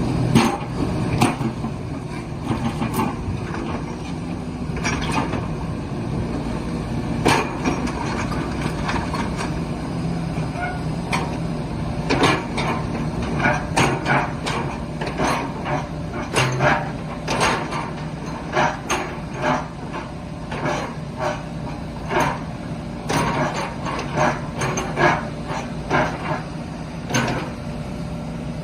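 Kubota 185-3 mini excavator's diesel engine running steadily, with many sharp metallic knocks from the working machine, coming thick and fast in the second half.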